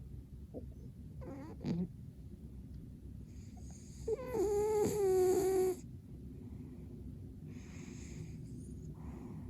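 Sleeping cat snoring: soft breaths every few seconds, and about four seconds in a louder, high-pitched nasal 'pū' whistle lasting under two seconds. A shorter, fainter one comes about a second in.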